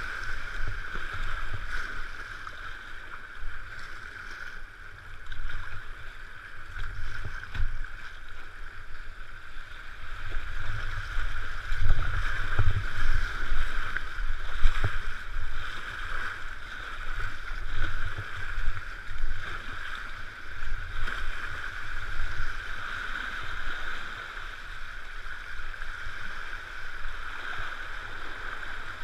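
Fast, swollen river water rushing around a kayak running downstream, with an uneven low rumble and a few sharper splashes around the middle.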